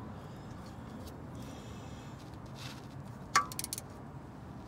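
Ratchet wrench tightening a bolt under a car: one sharp metallic clink about three and a half seconds in, followed by a few quick ratchet clicks.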